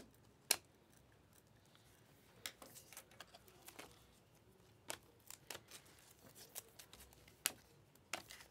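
Panini Optic trading cards being flipped one by one through a hand-held stack: faint, irregular clicks and snaps of card stock sliding over card stock. The sharpest snaps come about half a second in and near seven and a half seconds.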